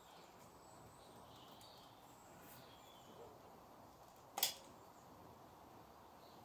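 Quiet outdoor ambience with faint bird chirps, and one sharp click about four seconds in from the hand-squeezed sealant gun as a bead of silicone is run along the door sill.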